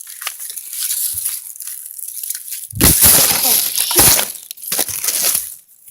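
Loud rustling and crunching of movement through dry brush and grass, with three heavy bursts: about three seconds in, at four seconds and near five seconds.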